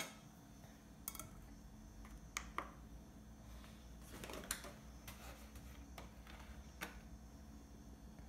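Several light clicks and knocks as a saucepan is set down on a small digital kitchen scale and handled.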